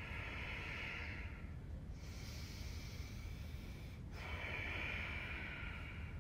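Deep, audible breathing of a person holding a yoga pose: three long breaths, each about two seconds.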